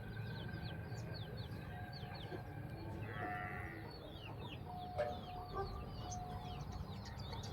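Desi chickens clucking, with many short high chirps throughout and a sharp click about five seconds in.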